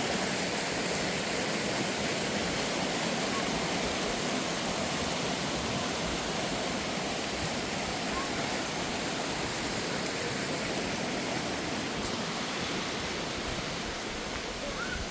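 Steady, even rush of flowing water from a stream or small waterfall.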